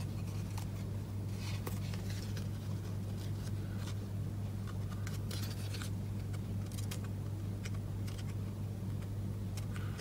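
Faint light clicks and rustles of hands handling a cardstock card and its twine bow, over a steady low hum.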